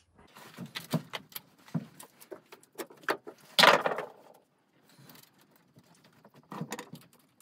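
Scattered metallic clinks and clicks as battery cables and terminal hardware are handled and fitted onto golf cart battery posts, with a brief louder scrape about three and a half seconds in.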